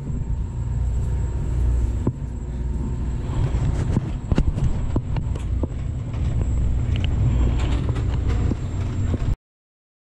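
Boat's engine running steadily at idle, a low rumble, with scattered clicks and knocks over it. The sound cuts off abruptly a little after nine seconds in.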